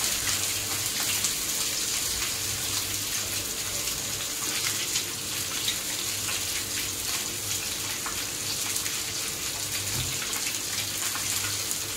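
Masala-coated tilapia shallow-frying in hot oil in a flat pan: a steady sizzle with fine crackles, over a faint steady low hum.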